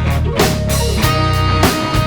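Live rock band playing an instrumental passage: drum kit hits over guitar and held notes, with no singing.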